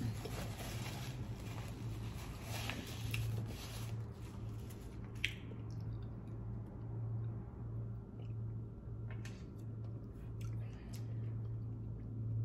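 Paper napkin rustling for the first few seconds, then the mouth sounds of drinking from a bottle and chewing, with a few small clicks, over a steady low hum.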